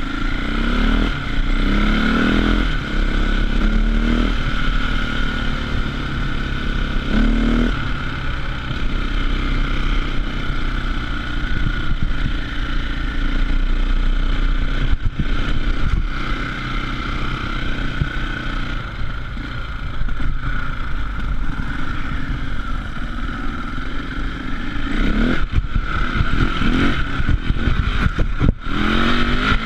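KTM off-road motorcycle engine heard from on board the bike, revved up several times with the pitch climbing in quick sweeps near the start and again near the end, running steadier in between.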